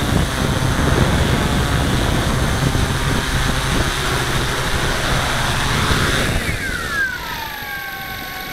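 Hexacopter drone's motors and propellers running loud, heard from the camera on board as it settles onto the ground. About six seconds in the motors spin down, several whines falling steadily in pitch together.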